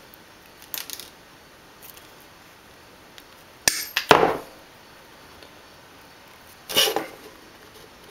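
Light handling of a pin and a plastic model part on a worktable: a faint click near the start, a sharp click followed by a short scrape a little before halfway, and another short scrape near the end.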